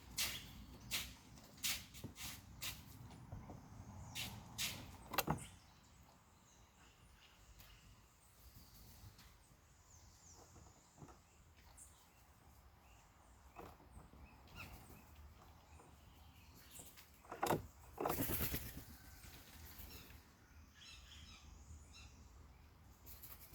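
Small birds: a quick run of sharp taps and knocks for the first few seconds, faint high chirps, and a brief loud rustle near the end.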